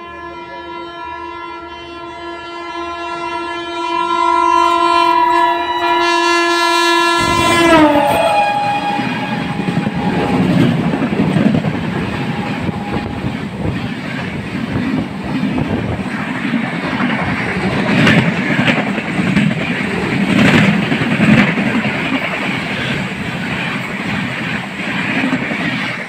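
WAP-7 electric locomotive horn sounding continuously, louder from about four seconds in, its chord sliding down in pitch as the locomotive passes about eight seconds in. Then the loud rush and rattling clatter of a passing train's coaches and wheels close alongside.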